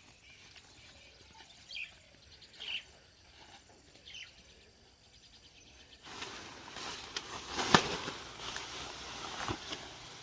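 Quiet outdoor ambience with a few short bird chirps, then nylon tent fabric rustling as it is unpacked. Metal tent poles knock together with one sharp click about three quarters in and a smaller one near the end.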